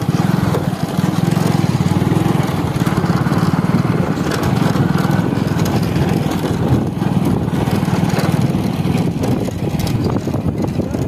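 Motorcycle engine running steadily at low speed as the bike rolls along.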